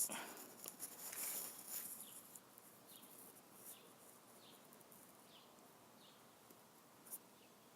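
Faint outdoor ambience with a small bird giving short, high, falling chirps about once every second. Crackly rustling in the first two seconds.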